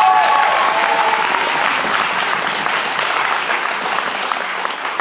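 Audience clapping, with a few whoops of cheering in the first second; the applause dies down near the end.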